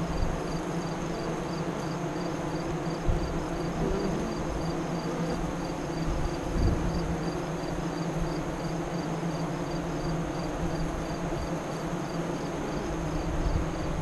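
Honey bees buzzing at the hive entrance: a steady hum of many wingbeats. A faint high chirp repeats about twice a second throughout.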